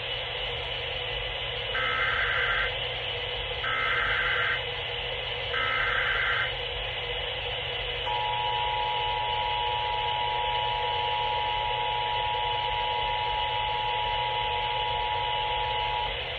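Emergency Alert System test tones received over a radio: three short bursts of the digital SAME header data, each just under a second, then the EAS two-tone attention signal (853 and 960 Hz together) held for about eight seconds, over steady radio hiss.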